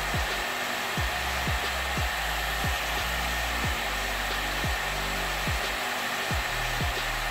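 Makita N5900B circular saw's motor running steadily with the blade spinning free, powered through an SCR voltage regulator. Background music with a steady bass beat plays under it.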